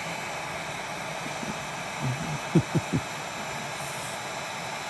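A steady hiss with a few short, low knocks about two and a half to three seconds in.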